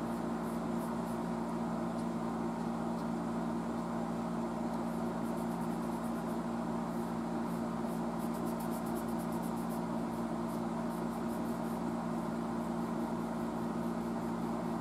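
Steady low electrical hum of running workshop equipment, unchanging throughout.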